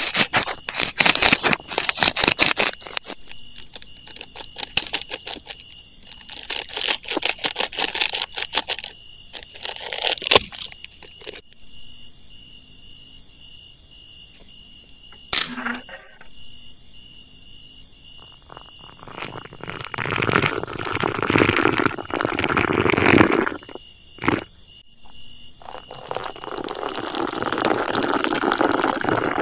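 Dry firewood and twigs being handled and broken to rebuild a campfire: dense crackling, snapping and rustling, one sharp knock about halfway, then a rushing noise that swells twice in the second half.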